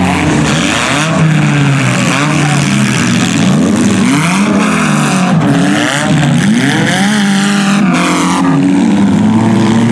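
Several demolition derby cars' engines revving up and down at the same time, their pitches rising and falling over one another as the cars accelerate and back off.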